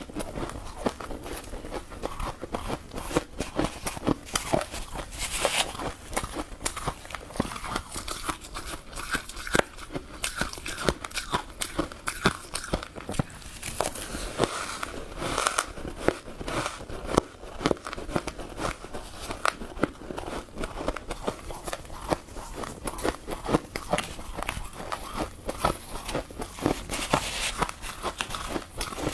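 Close-up crunching and chewing of soft, powdery freezer frost, a dense run of fine crackles with sharper crunches scattered through.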